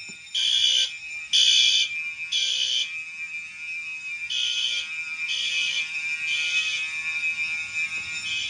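Fire alarm sounder going off in the temporal-three evacuation pattern: three half-second blasts, a pause of about a second and a half, then three more, starting again near the end. A steady high tone from another device rings under it throughout.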